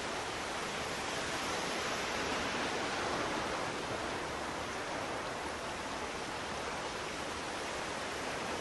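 Sea surf: a steady rushing wash of waves, swelling slightly a few seconds in.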